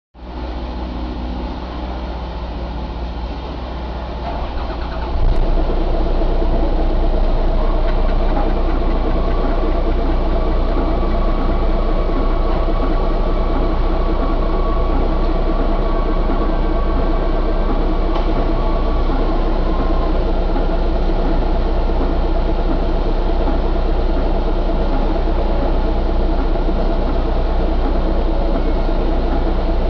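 Isuzu 6HK1 inline-six diesel engine running steadily. About five seconds in it steps up in loudness and then holds at that higher level.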